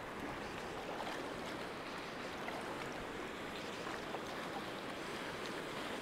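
Choppy shallow sea water washing and lapping in a steady, even wash.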